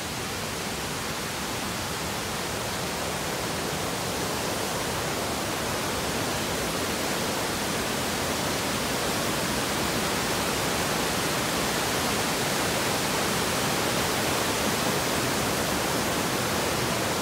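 Rushing whitewater of a rocky mountain stream tumbling over boulders, a steady, even rush of water that grows slightly louder toward the end.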